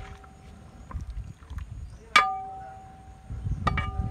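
A metal ladle knocking against a large metal cooking pot as fried chicken is scooped out. There is a loud ringing clang about two seconds in and a lighter clang near the end, with faint knocks before them.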